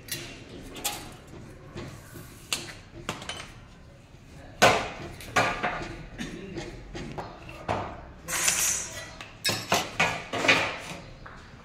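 Aluminium profiles and hand tools knocked and clinked against each other and a metal saw bench: a string of separate metallic knocks and clinks, the loudest about four and a half seconds in.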